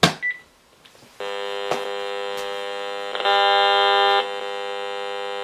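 A sharp click and a short high beep, then about a second in an RF meter's audio starts a steady harsh buzz as it picks up pulsed radiation from a cordless phone base being plugged in. The buzz grows louder for about a second in the middle, then settles back.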